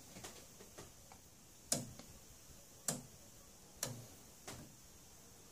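Sharp mechanical clicks from a linear lab power supply, five or six of them, irregular and roughly one a second, the strongest around the middle.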